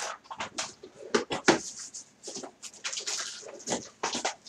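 Craft supplies and their packaging being handled on a table: a run of irregular clicks, taps and rustles.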